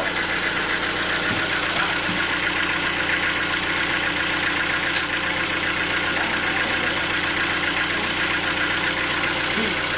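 Sawmill machinery running steadily, an engine-driven drone with a fast flutter, at an even level; one brief sharp tick about halfway.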